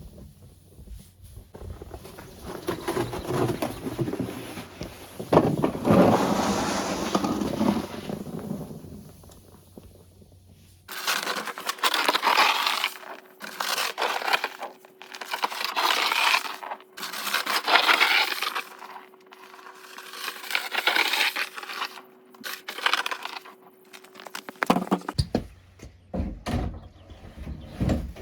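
Snow being shovelled: repeated scraping, crunching strokes of a shovel through snow, about one every two seconds.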